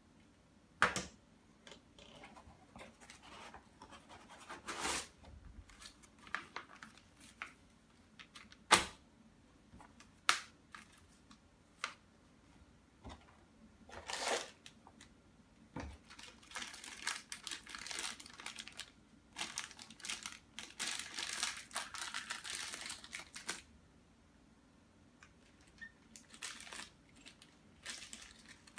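Packaging handled on a tabletop: sharp knocks as hard plastic items are set down, the loudest about a second in and again near nine seconds, then a long stretch of rustling and crinkling of the cardboard box and its paper and plastic contents.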